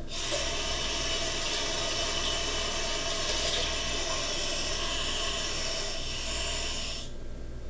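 Kitchen sink faucet running water into a cup, a steady hiss that stops abruptly about seven seconds in when the tap is shut off.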